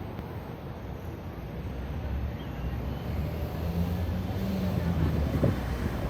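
Road traffic: a motor vehicle's engine running close by, growing louder through the second half, with a low hum, and a brief sharp sound near the end.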